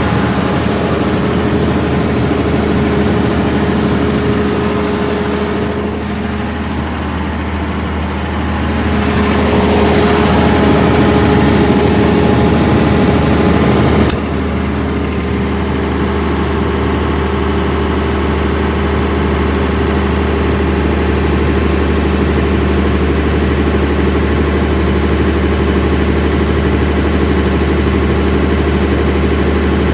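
Nippon Sharyo diesel generator set running at a steady speed, a constant low hum with its engine drone. A single sharp click comes about halfway through, and the running sound is slightly quieter after it.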